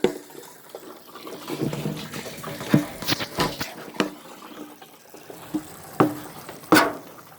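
Water splashing and sloshing unevenly, with a run of sharp splashes about three seconds in and two more near six and seven seconds.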